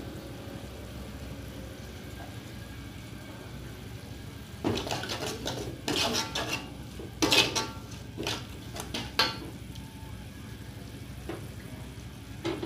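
Metal spatula and spoon scraping and clinking against a metal wok while stirring chilies, garlic and shallots frying in oil, with a short metallic ring after some strikes. The scrapes come in a cluster from about five seconds in to about nine seconds, over a faint steady hiss.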